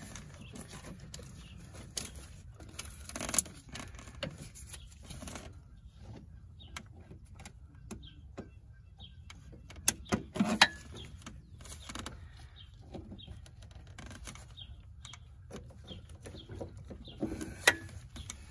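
Wrench and metal fittings clicking and knocking now and then as gloved hands work on a clutch master cylinder's fittings, with a few sharper knocks about three seconds in, around ten seconds in and near the end.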